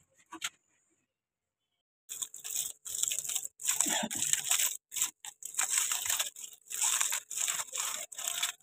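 Aluminium foil crinkling and rustling in irregular bursts as hands unwrap a foil parcel of chicken, starting about two seconds in after a near-silent pause.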